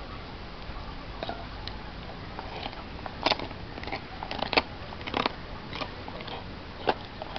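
German Shepherd gnawing a raw meaty bone, its teeth scraping and cracking on it in irregular sharp crunches, the loudest between about three and five seconds in and another near the end.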